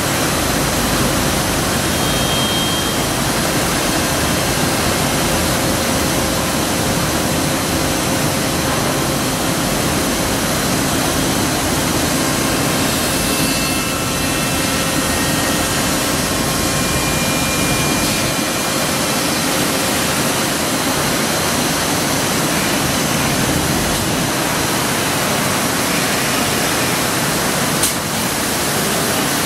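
1997 IMA Quadroform C 80/280 CNC woodworking machining centre running: a loud, steady rushing noise from its spindle head and dust extraction, with one short knock near the end.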